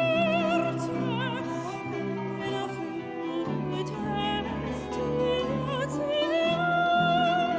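Background music in an operatic style: a slow melody with wide vibrato over held low notes, the bass moving to a new note about halfway through.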